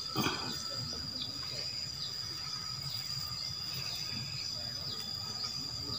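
Insects buzzing in a steady high-pitched drone, with short high chirps repeating about once a second.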